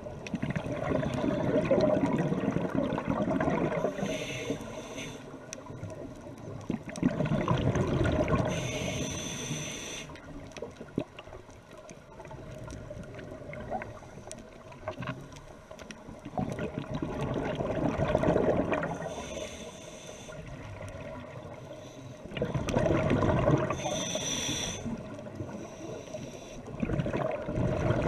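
Scuba diver breathing through a regulator underwater: a bubbling rumble of exhaled air about every five to seven seconds, each followed by a short hiss of inhaling.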